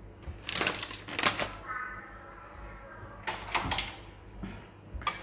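Three short clusters of clicking and clattering, kitchen utensils knocking against ceramic bowls: one about half a second in, one past the middle and one near the end.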